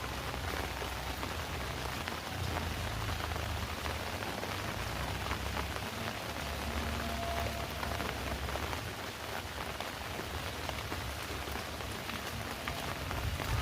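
Heavy rain falling steadily on surfaces, with scattered sharper drips and a low rumble underneath.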